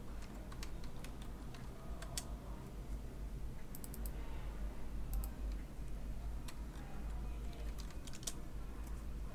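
Typing on a computer keyboard: scattered sharp key clicks, with quick runs about four seconds in and again near eight seconds, over a steady low hum.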